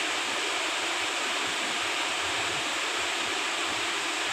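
Khlong Lan Waterfall's steady rushing roar of falling water, running strong and heavy.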